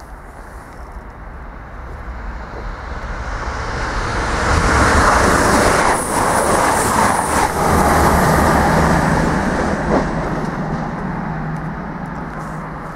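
A train passing along the main line through the station, growing louder to its loudest about five seconds in, then fading away.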